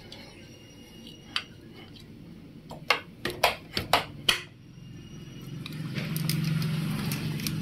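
Sharp metallic clinks and taps, six or seven in quick succession, as a tight-fitting metal cover on the cylinder head of a Hero Splendor Pro engine is worked loose by hand and tool. Near the end a low hum swells up and fades.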